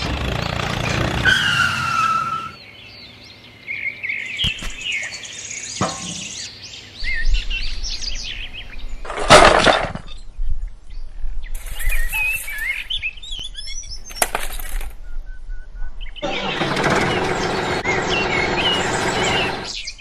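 Bird chirps in short gliding calls, coming and going in separate patches, with a loud sudden crash about nine and a half seconds in.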